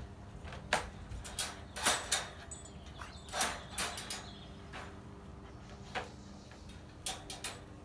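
Irregular clicks and metallic rattles of a wire dog crate's door and latch being handled, a dozen or so short knocks spread unevenly through the stretch.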